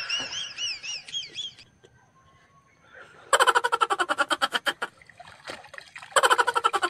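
Water splashing as a hand scoop net and hands are worked through shallow lake water among water hyacinth, then the net is lifted out with water pouring through its mesh. It comes in two loud bursts of quick splashing, the second as the net comes up.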